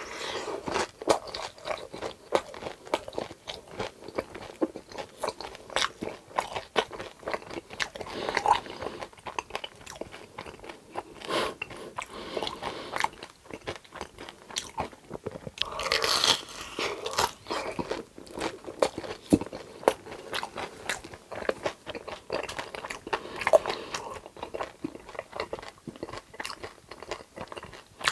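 Close-miked eating: a person biting and chewing crunchy food in a steady run of sharp crunches and mouth clicks, with louder crunchy bites about halfway through and again later on.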